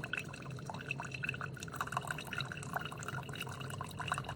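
Single-serve pod coffee maker dispensing freshly brewed hot tea into a cup: an irregular stream of drips and splashes over a low, steady machine hum.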